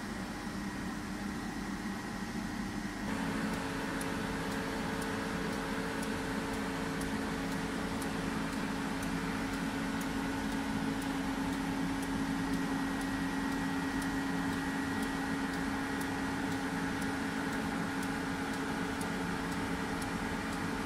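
Steady hum of a powered-up Kondia B-1050 CNC vertical machining center: fans and electrics running with several held tones and faint ticks about once a second. The hum gets louder, with a new tone, about three seconds in.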